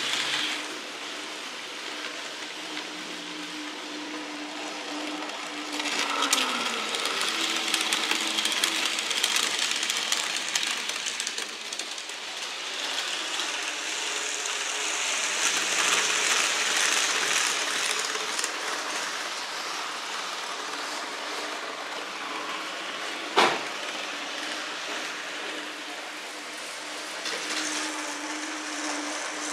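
N-scale model locomotives running on the layout: a steady whir of small electric motors over a hiss of wheels on track that swells and fades as trains pass, with the motor tone dropping in pitch about six seconds in. One sharp click about 23 seconds in.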